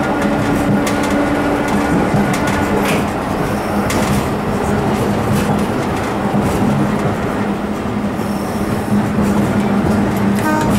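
Nagasaki Electric Tramway 1800 series streetcar running along its street track, heard from the driver's cab: a steady hum under the rumble of the wheels, with a sharp clack from the wheels on the rails every so often.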